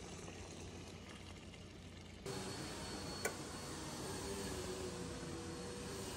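Steady low background hum and hiss of a room, which steps up abruptly about two seconds in, with a single sharp click about a second later.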